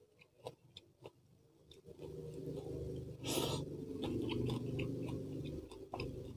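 Close-miked chewing of a mouthful of food, with small sharp mouth clicks. About two seconds in, a steady low rumble rises under it and lasts several seconds, with a brief hiss partway through.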